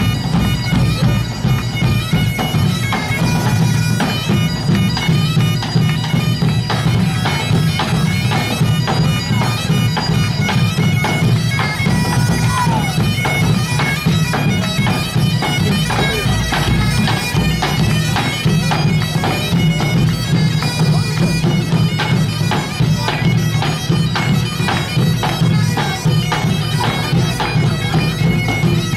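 Live bagpipes playing a tune over their steady drone, loud and unbroken throughout.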